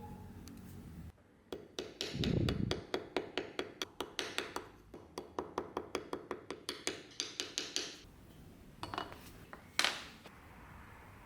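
A quick run of small, hard clicks, about four a second, for several seconds, with a dull thud early on. A few separate sharper clicks follow near the end.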